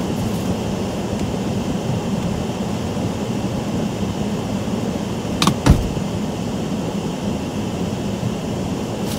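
Heavy rain beating on a car's roof and windshield, heard from inside the cabin as a steady rushing hiss over a low hum, with two sharp knocks close together a little past the middle.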